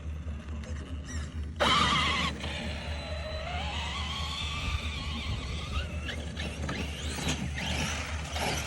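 Electric RC truck's motor whining, with a sudden loud burst about a second and a half in, then a whine that rises in pitch and wavers as the truck strains to climb a steep hill.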